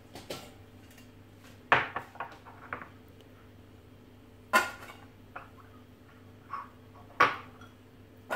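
Stainless-steel couscoussier steamer basket clattering as it is handled over a clay dish, with raisins dropped into its perforated base. Three sharp metallic knocks come roughly two and a half to three seconds apart, with lighter clinks between them.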